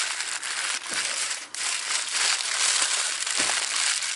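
Aluminum foil crinkling as hands fold and crimp it shut into a packet around a piece of salmon.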